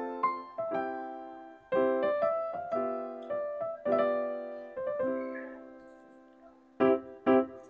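Background piano music: a gentle melody of single struck notes that ring and die away. It thins out and almost stops for a moment, then picks up again shortly before the end.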